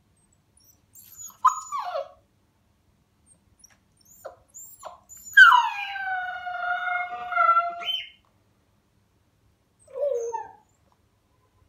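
Siberian Husky puppy howling: a few short cries, then one long howl of about two and a half seconds that starts high, drops and holds a steady pitch, and a short yelp near the end.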